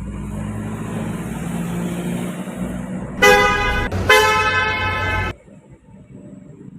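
A heavy vehicle's engine running and getting louder as it approaches, then two loud horn blasts about three and four seconds in, the second a little longer. The engine and horn sound cut off suddenly just after the second blast.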